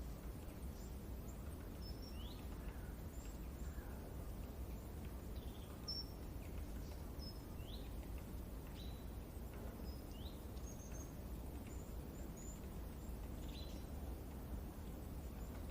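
Forest birds chirping: scattered short, high chirps, some sliding up and some down, over a steady low rustle of wind.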